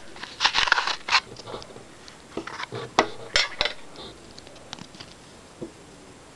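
Packaging and a paper leaflet being handled: scattered light clicks and short rustles, busiest in the first second and again around three seconds in.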